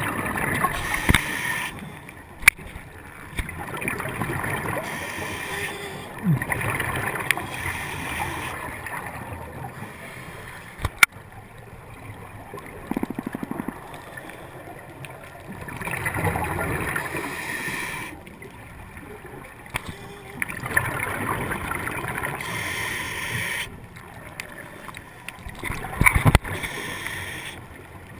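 Scuba diver breathing through a regulator, heard underwater: gurgling bursts of exhaled bubbles lasting two or three seconds, coming back about every four seconds, with quieter inhales between. A couple of sharp clicks stand out.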